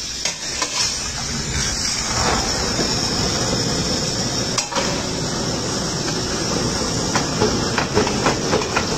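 Flat metal spatula scraping and knocking against a large stainless steel pan of beef cubes, with a steady hiss under it; a quick run of knocks near the end.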